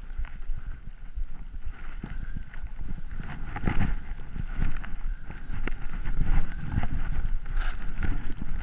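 Wind rushing over an action camera's microphone while skis hiss and swish through deep powder snow, in uneven surges that grow stronger in the second half.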